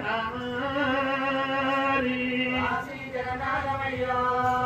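Oggu katha folk singing: male voices chanting a slow melodic line in long held notes, amplified through a PA.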